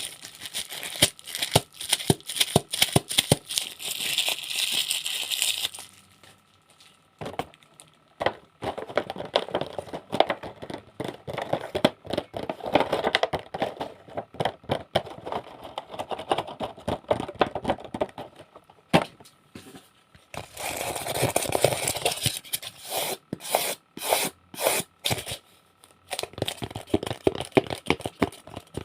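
Close-up ASMR trigger sounds: crinkling, tearing-like rustles broken by many sharp clicks and taps. They come in stretches with short quiet gaps between them.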